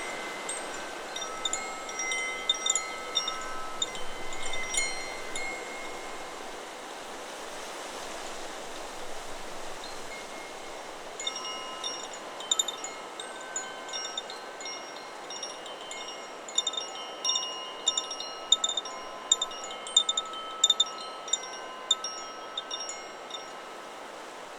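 Chakra Chimes 'Solar Plexus' wind chime set swinging in the wind, ringing in irregular clusters of bright tones over a steady hiss of wind. The chimes ring busily at first, go nearly quiet for a few seconds about a quarter of the way in, then ring busily again.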